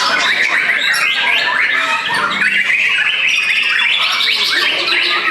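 White-rumped shamas singing in a songbird contest: a loud, unbroken tangle of fast whistles, chirps and quick rising and falling trills from several birds at once.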